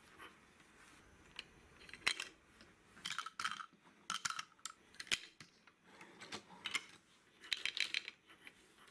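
Hard plastic toy pieces clicking and clattering as they are handled and set down on a wooden table, a string of short, irregular taps with a quick cluster near the end.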